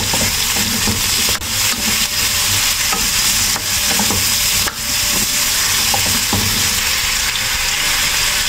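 Bell peppers, onions and carrots sizzling in hot oil in a wok as they are stir-fried with a spatula, with a few sharp scrapes and clicks of the spatula against the pan.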